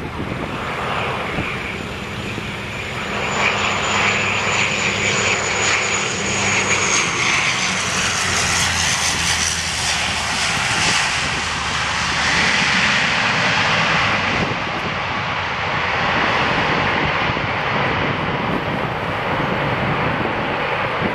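Bombardier Dash 8 Q400 with its twin Pratt & Whitney PW150A turboprops, landing. A high engine whine slides down in pitch as it passes, the propeller noise is loudest around touchdown, and it then runs steadily as the aircraft rolls out along the runway.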